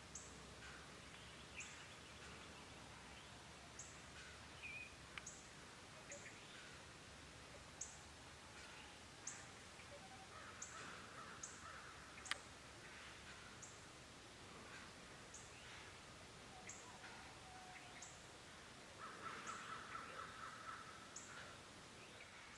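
Faint early-morning bird calls: short high chirps repeating about once a second, with a run of quick, harsher calls near the end. A single sharp click comes about halfway through.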